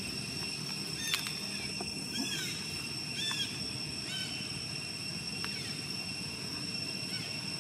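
Forest ambience: a steady high-pitched insect drone. Over it, a short rising-and-falling call repeats about once a second through the first half, above a low rumbling background.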